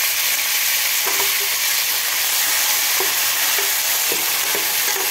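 Eggplant and potato pieces sizzling in hot oil in a stainless steel pan as they are sautéed, with a steady hiss. A steel ladle scrapes and knocks against the pan several times as the pieces are stirred.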